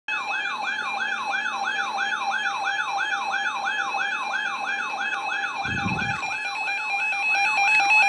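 NOAA weather alert radio sounding its tornado-warning alarm: a rising siren whoop repeating about three times a second over a steady high tone. A single dull bump comes about six seconds in.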